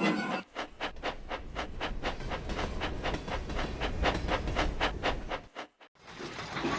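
Steam locomotive running, with rapid, even chuffs at about five a second over a low rumble, cutting off suddenly near the end.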